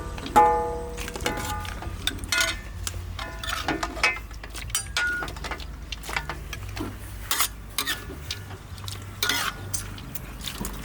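Metal kitchen utensils knocking and clinking against pots and dishes: a string of sharp, irregular knocks, some of them ringing briefly.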